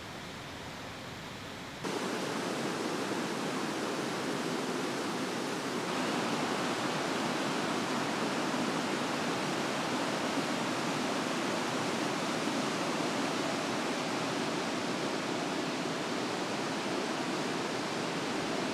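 Steady rush of water pouring over rocks and deadfall in a creek running at high water. It gets louder about two seconds in.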